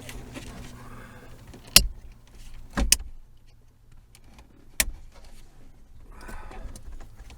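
Three sharp plastic clicks and snaps from a pickup's overhead console being handled and its parts pried loose: the first, about two seconds in, is the loudest, and the others follow about one and three seconds later. A steady low hum runs underneath.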